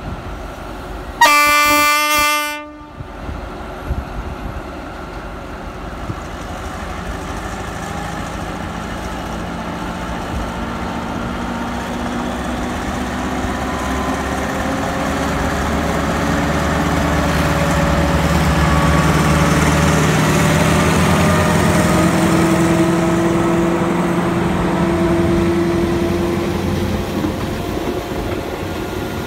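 Alsthom diesel-electric locomotive 4151 sounds its horn in one blast of about a second and a half, then its engine drone grows louder as it hauls the passenger train past, peaking about twenty seconds in. Near the end the coaches roll by on the rails.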